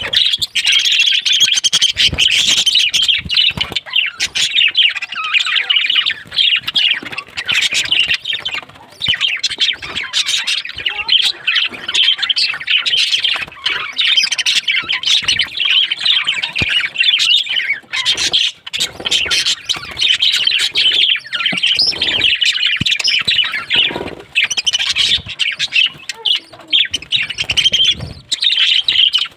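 A flock of small birds chattering and squawking continuously, many short overlapping high-pitched calls with only brief lulls.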